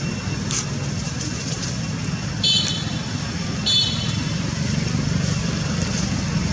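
Steady low rumble of motor traffic. Two short, high-pitched calls break through it, a little over a second apart.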